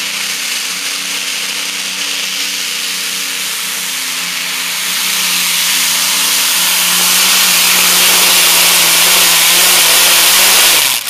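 Modified pulling tractor's engine running flat out under load as it drags the weight-transfer sled, a loud, steady roar holding one pitch. It grows louder about halfway through, then the pitch sags just before the sound cuts off abruptly.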